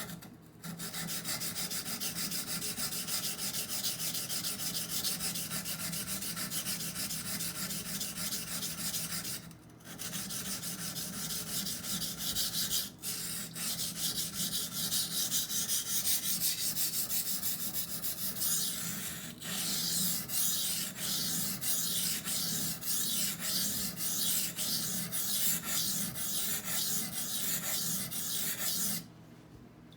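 Steel knife blade, a Benchmade Bugout in CPM-20CV, scraping in long sweeping passes across a wet, coarse 220-grit Norton water stone on the second side of the edge. It is a steady gritty rasp with a few short breaks. About two-thirds of the way through the strokes turn shorter and separately audible, and they stop shortly before the end.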